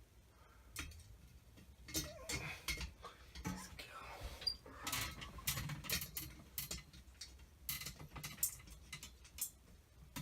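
Irregular clicks, taps and clinks of hands handling small ceiling-fan parts, denser from about two seconds in.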